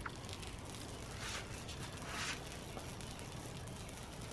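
Faint handling noise over low steady background noise: a small click at the start, then two soft rustles.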